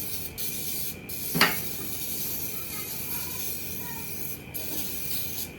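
Bacon sizzling in a frying pan, a steady hiss, with one sharp knock about a second and a half in.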